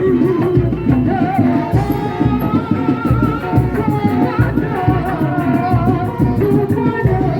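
Kuda lumping accompaniment music: drums beating a steady rhythm under a wavering melody line, with singing.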